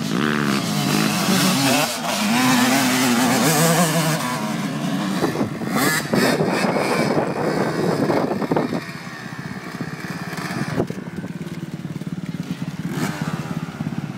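Motocross dirt bike engines revving hard as they climb a steep grassy hill, the pitch rising and falling with the throttle. The engine sound drops to a lower level after about eight and a half seconds.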